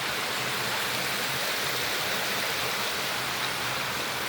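Water running and splashing over rocks in a shallow creek with a small waterfall, a steady hiss.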